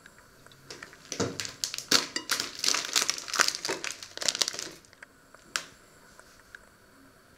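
Plastic bag of long-grain rice crinkling and rustling as it is handled, a dense run of crackles lasting about four seconds, then a single click.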